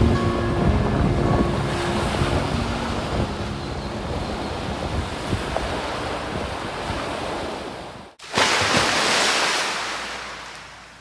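Ocean surf washing onto a sandy beach, with wind buffeting the microphone, slowly fading; music is fading out at the start. About eight seconds in the sound cuts off and a short burst of rushing noise follows, fading away.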